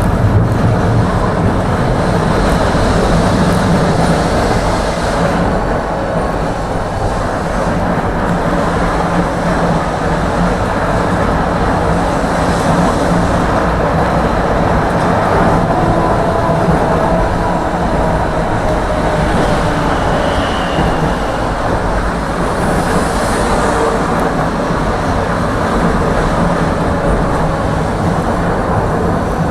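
Tram running between stops, heard from inside the car: a steady rumble of wheels on rails and running gear. A faint whine slides down in pitch about halfway through.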